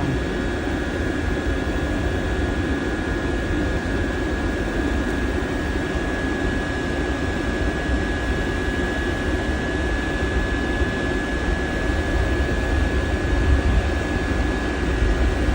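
Diesel heater running steadily: the even roar of its burner and blower, with a thin steady high whine over it.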